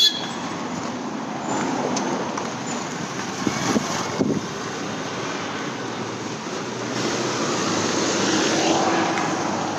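Street traffic: cars and scooters going past, and near the end a city bus drives by close, making the loudest part.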